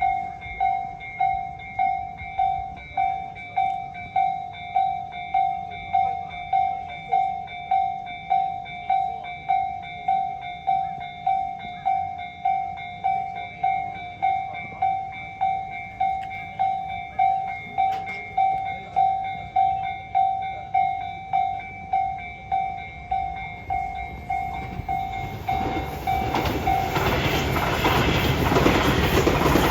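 Japanese level-crossing warning bell ringing in a steady, even rhythm, about three strikes every two seconds. Near the end the rising rumble of a Tobu 200 series electric train reaching the crossing drowns the bell out.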